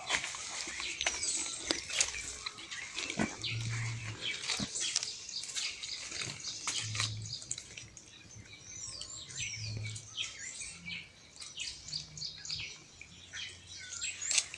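A pig grunting low and briefly, four or five times a few seconds apart, against birds chirping and scattered small clicks and rustles.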